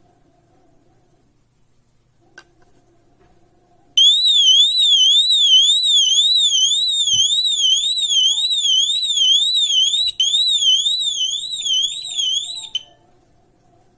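Tuya water leak sensor's built-in 80 dB alarm going off about four seconds in, set off by water at its contacts: a loud, high warbling tone sweeping up and down about twice a second. It breaks off for an instant partway through and stops abruptly near the end.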